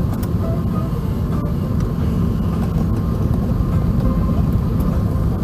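Airbus A380 cabin noise heard from a passenger seat: a steady, heavy low rumble of engines and airflow.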